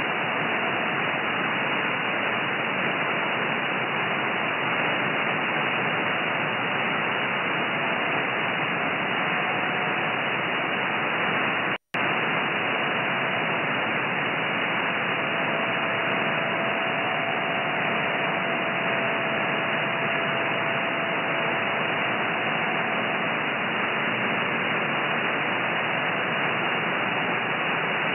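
Shortwave receiver hiss from a software-defined radio tuned in upper sideband to the 30 m amateur band near 10.140 MHz: steady band-limited static with faint steady tones of weak signals in it. The audio cuts out for a split second about twelve seconds in.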